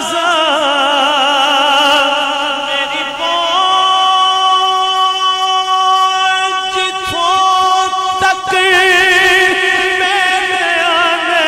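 A man singing a naat unaccompanied in long drawn-out notes without clear words, wavering with vibrato at first and near the end, held steady in the middle and stepping up in pitch twice.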